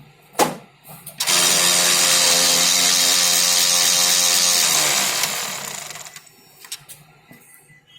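A click, then a Konica Minolta bizhub C258 colour copier giving a loud mechanical grinding whir for about four seconds before it winds down. This is the noise problem that comes with a blocked waste toner unit.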